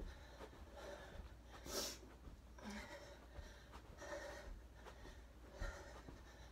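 A woman breathing hard through low jumping jacks, about one heavy breath a second, the strongest about two seconds in, with soft thumps of her feet landing on the floor.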